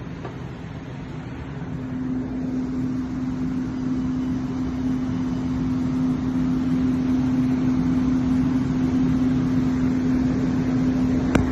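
AC TIG welding arc on aluminium, a steady buzzing hum over a hiss, growing louder over the first couple of seconds. A few sharp clicks come right at the end.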